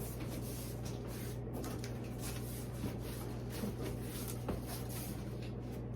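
Cardboard shipping box being opened and its packing handled: soft scrapes and rustles over a steady low hum.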